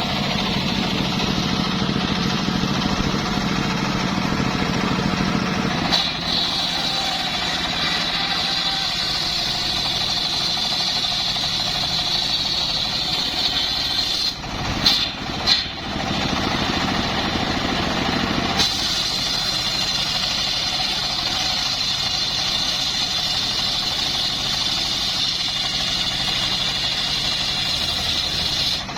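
An engine running steadily, its sound shifting abruptly about 6 seconds in and again about 18 seconds in, with a couple of short dips in the middle.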